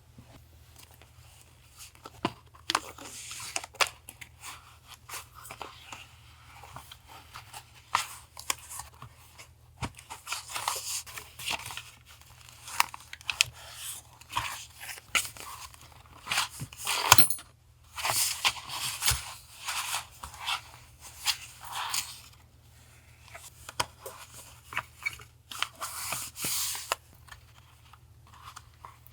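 Paper being handled, rustled and torn in irregular short bursts, with scattered clicks and taps, over a steady low hum from a nearby refrigerator.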